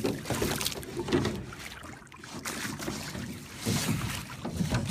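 Water gurgling and splashing around a rowboat as it is rowed, swelling and fading unevenly with the oar strokes.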